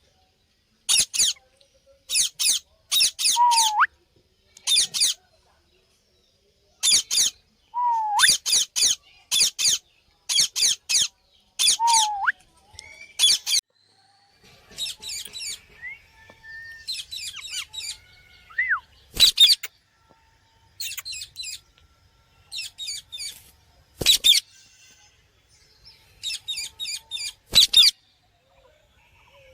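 Parrot giving short, harsh, high chirping calls in quick clusters with silent gaps between them. A few brief whistled notes sliding down in pitch come between the clusters.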